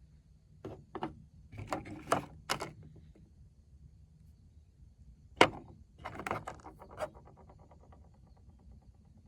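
Polished stones clicking and knocking against one another as they are handled and set down in a small pile: a string of sharp clicks, the loudest about five and a half seconds in, ending in a short rattle.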